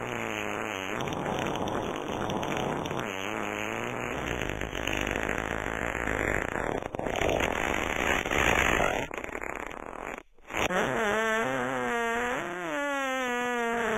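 A run of fart sounds: long, rasping, sputtering farts, two of them with a short falling pitch near their start. After a brief break about ten seconds in, a longer fart follows with a wavering, squeaky pitch.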